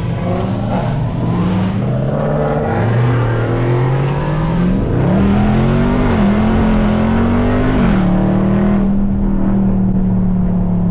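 Supercharged 6.2-litre HEMI V8 of a Dodge Charger Hellcat heard from inside the cabin, accelerating with its pitch climbing and dipping, then settling to a steady cruise about eight seconds in.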